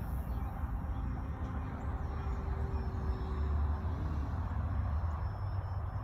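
Wind buffeting the microphone in a steady low rumble, with the faint whine of a small electric RC plane's motor flying overhead, which comes and goes.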